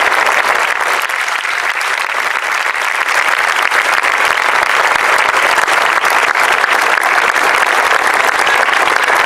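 A large crowd applauding, many hands clapping in one continuous, unbroken round of applause.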